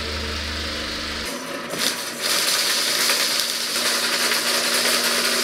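A vehicle engine idles for about a second, then cuts off. From about two seconds in, an electric drum drain-cleaning machine runs steadily while clearing a blocked sink drain: a motor hum under the loud rattle and grind of the spinning steel cable in its drum.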